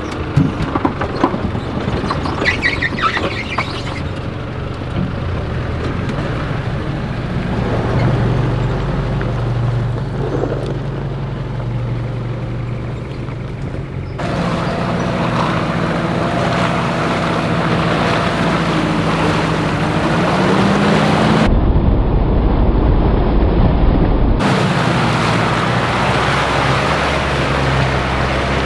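Four-wheel-drive engine running at low speed along a rough dirt track, with knocks and rattles over the first few seconds and the revs rising briefly about two-thirds of the way through. The sound changes abruptly several times as the footage cuts between shots.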